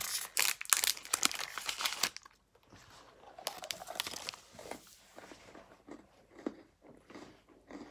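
Packaging crinkling and rustling in someone's hands. It is dense and crackly for about two seconds, then drops to softer, scattered rustles.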